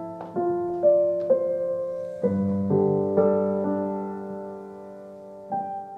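Background music: a slow piano melody, single notes ringing on and fading, then a fuller sustained chord about two seconds in and one more note near the end.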